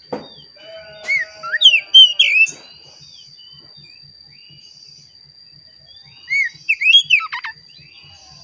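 Oriental magpie-robin (kacer) singing: two bursts of loud, varied whistled phrases with quick rising and falling notes, about a second in and again around six seconds in. A faint steady high tone runs underneath.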